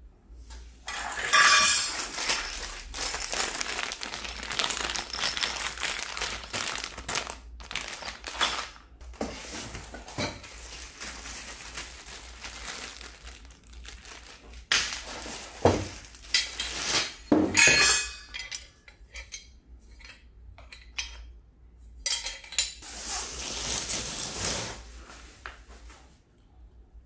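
Black metal brackets and poles of a North Bayou mobile TV stand clinking and clanking as they are lifted out of the box, with plastic packaging rustling. A few sharp knocks come about two thirds of the way through.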